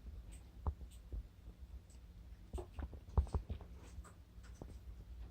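Slime patted and pressed by hand for footstep foley: faint, scattered small wet taps and clicks, several close together about two and a half to three and a half seconds in, over a low room hum.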